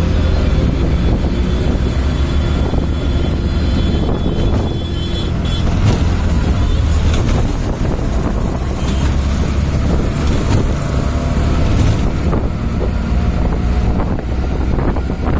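Auto rickshaw engine running steadily at speed, heard from inside the open cab, with wind buffeting the microphone.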